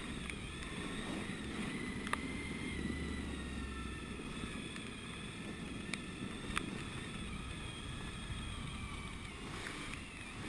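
Suzuki V-Strom 1000 ABS's V-twin engine running steadily while the motorcycle rides over a gravel forest track, with tyre and road noise and a few sharp ticks.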